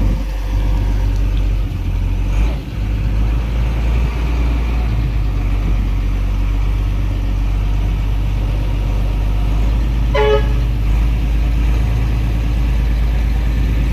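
Diesel engine of a Mercedes-Benz road-rail truck running steadily with a deep rumble. About ten seconds in there is a short vehicle horn toot.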